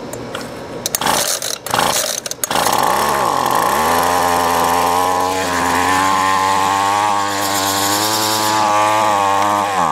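Weed Eater SST25CE string trimmer's small two-stroke engine cold-starting on choke. After a few sputters it catches about two and a half seconds in, bogs briefly, then runs at a steady fast choke idle. Near the end its pitch drops and it dies: the engine, out of use for a couple of weeks, won't keep running.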